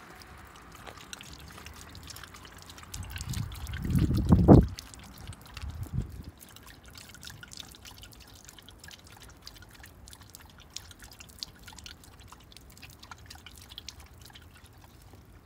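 Water poured from a plastic bottle in a thin stream, trickling and dripping into a concrete ditch as a dog drinks from it. There is a low thump about four seconds in, and a smaller one near six seconds.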